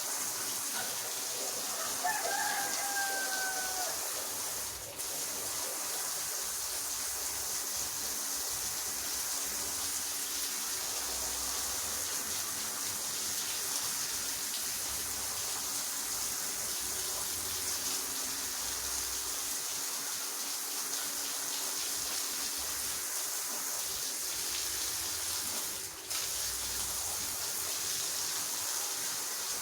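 Steady rushing noise of water from machine carpet scrubbing with a floor polisher. A rooster crows once in the background about two seconds in, one call trailing slightly downward.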